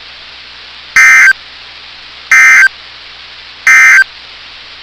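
Three short bursts of EAS/SAME digital data tones over NOAA Weather Radio, each about a third of a second long and evenly spaced a little over a second apart, with radio hiss between them. These are the end-of-message code that closes the flood warning.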